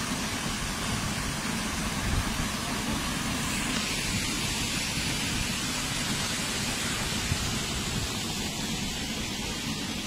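Small waterfall pouring into a rock pool: a steady rush of falling water with a deep rumble under it, the hiss growing brighter for a few seconds in the middle.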